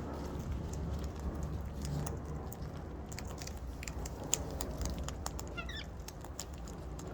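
Scattered small clicks and taps from birds pecking and nibbling at food, over a steady low background hum. A short falling run of chirps comes from a bird about five and a half seconds in.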